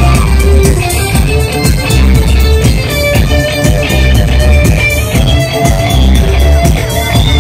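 Live pop band playing through a loud stage PA: electric guitar over a heavy bass line and a steady drum beat.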